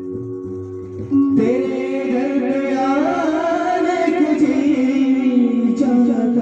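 Live devotional stage music over a PA system. A sustained instrumental chord plays for about a second, then a singer's voice comes in over the accompaniment and the music grows louder.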